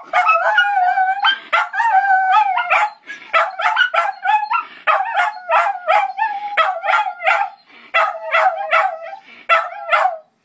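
Miniature schnauzers howling together in long, wavering notes, then breaking into a run of short yipping howls, about two a second, for the rest of the time.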